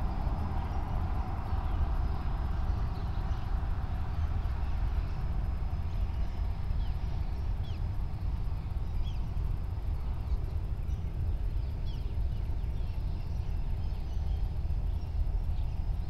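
Steady low rumble, with faint short bird chirps scattered through from about six seconds in.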